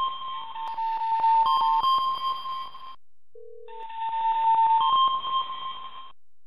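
Electronic alert signals from a live seismic monitor: a steady two-note tone that steps up in pitch, over a rapid run of clicks. It breaks off about three seconds in, a short lower beep sounds, and the two-note tone and clicks return until about six seconds in. The signals go off as the stations' seismograms are swamped by strong earthquake waves.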